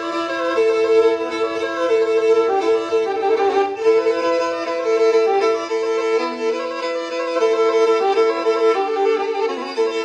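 Background music: a Black Sea kemençe, a small bowed fiddle, playing a quick tune that flicks rapidly back and forth between a few notes.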